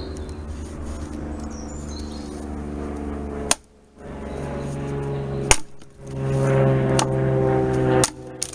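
A hatchet with a freshly fitted ash handle chopping into wood: about five sharp strikes a second or so apart, growing closer together near the end. Steady background music plays underneath.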